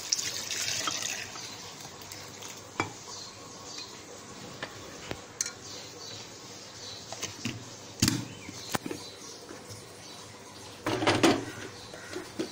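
Kitchen handling sounds around a glass blender jar: a soft pour of milk into the jar at the start, then a few scattered clinks and knocks, and a louder clatter near the end as the jar is set onto the blender's motor base. The blender itself is not running.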